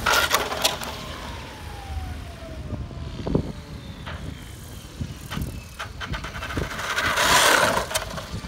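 SAB Goblin Kraken RC helicopter with an Xnova electric motor flying hard and low: a motor and rotor whine that falls slowly in pitch, with loud rushing gusts of rotor noise at the start and again, loudest, about seven seconds in.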